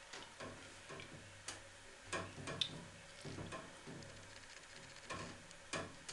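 Scattered light plastic clicks and knocks as a corrugated hose is pushed onto the outlet of a submersible aquarium water pump under water. The sharpest click comes about two and a half seconds in.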